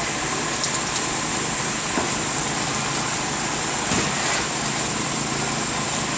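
An engine running steadily at an even speed, with a faint high whine over it, and a few sharp knocks about four seconds in.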